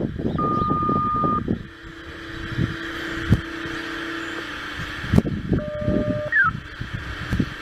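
Radio scanner playing a dispatcher's two-tone sequential page: a higher tone for about a second, then a lower tone held for about three seconds. Near the end comes a short beep and a quick rising chirp. A rumble of noise fills the first second and a half.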